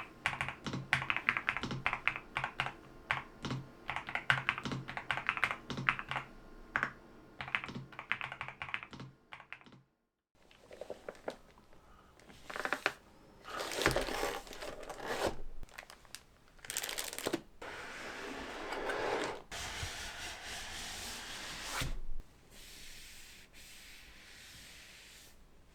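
Rapid typing on a NuPhy Halo65 V2 65% mechanical keyboard, a dense run of key clicks, for about the first ten seconds. After a brief silence come irregular rustling, sliding and scraping sounds as the keyboard and accessories are packed back into their box.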